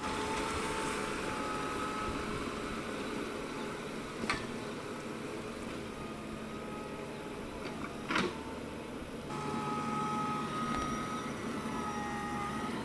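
An engine running steadily with a whining hum, with two short sharp knocks about four and eight seconds in; the hum's note shifts about nine seconds in.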